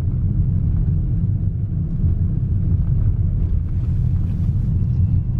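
Steady low rumble of a car driving, heard from inside the cabin: road and engine noise with strong wind buffeting the car.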